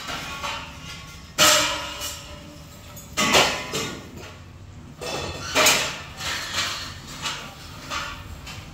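Paint roller on an extension pole rolling paint across a plastered ceiling: a sticky hissing swish with each stroke, several strokes about two seconds apart, the loudest about a second and a half in.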